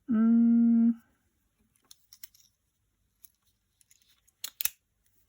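A man hums a steady "hmm" for about a second. Then come a few small clicks from handling a multi-tool pocket knife, with two sharper clicks near the end.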